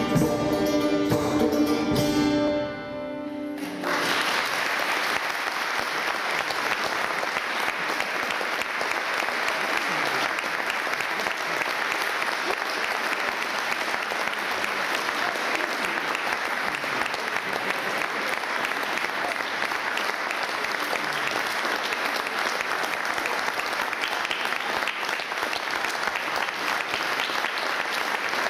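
A medieval music ensemble's last held notes die away about three seconds in, then an audience applauds steadily for the rest of the time.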